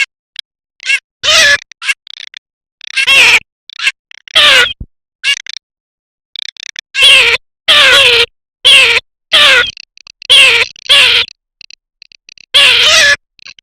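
Garganey calling: a loose series of about ten loud, harsh, nasal calls, each under half a second, coming singly or in quick pairs with short gaps between. Faint, short, high chirps sound between the calls near the end.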